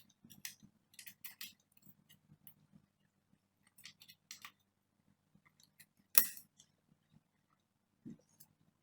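Small scattered clicks and taps of a 16 GB laptop RAM module being handled and pressed into its slot, with one sharper click about six seconds in, over a faint steady hum.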